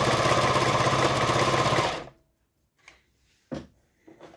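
Pfaff Variomatic 6085 sewing machine running steadily at speed, stitching a stretch-stitch pattern with a rapid even needle rhythm, then stopping suddenly about two seconds in. A few short clicks follow.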